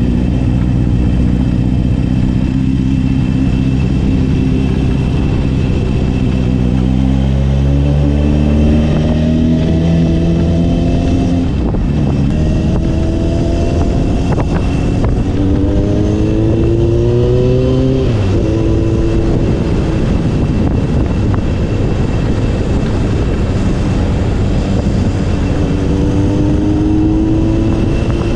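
Honda CB750 K0's air-cooled inline-four running through a Delkevic stainless 4-into-1 exhaust with a megaphone silencer, heard from the rider's seat on the move. From about six seconds in the engine note climbs through the gears, dropping back at each of three changes, then settles to a steady cruise and climbs again near the end. Steady wind and road noise run underneath.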